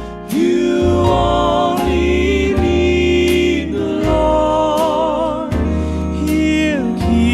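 Southern gospel quartet music: long held vocal harmonies with vibrato over a walking bass line and a steady drum beat.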